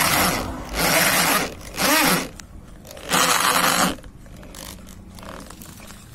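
Four loud scraping strokes of uneven length and spacing, some with brief squeals in them; quieter after about four seconds.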